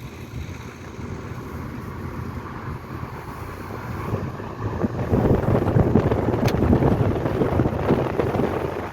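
Wind buffeting the microphone over a low rumble, growing louder about five seconds in.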